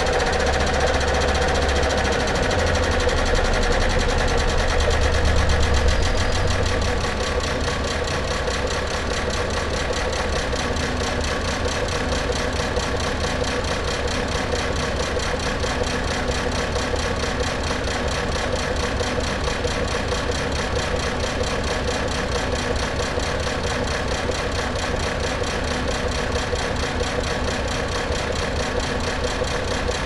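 Car engine running at a steady idle, a little louder for the first six or seven seconds before settling to an even level.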